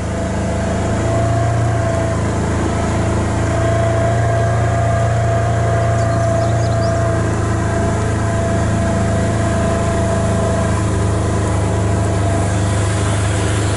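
Log skidder's diesel engine running steadily under load, a low drone with a steady whine above it, growing a little louder over the first second.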